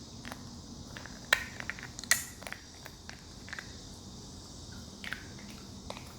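A puppy playing with stones: scattered sharp clicks and knocks of stone, the two loudest a little over a second and about two seconds in, over a steady high hiss.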